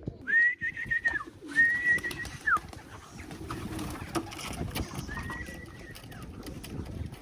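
Homing pigeons cooing in the loft, with scattered light clicks. Three held, high whistled notes come through: two in the first three seconds and one about five seconds in.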